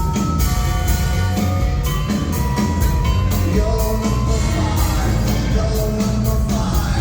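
Live rock band playing the song with a steady drum beat and cymbal strokes, a strong bass line and held higher notes on top.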